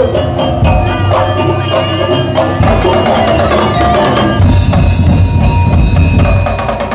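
Daul percussion ensemble playing loudly: fast, dense drumming and wood-block-like strikes under a held melody, with heavy bass drum.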